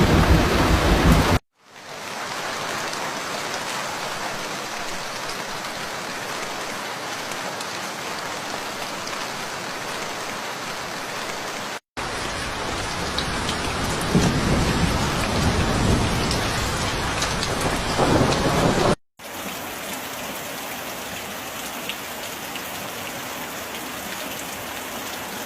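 Rain sound effects in several separate recordings, cut apart by short silences: steady heavy rain hiss throughout, with thunder rumbling under the rain for the first second or so and again through a stretch in the middle.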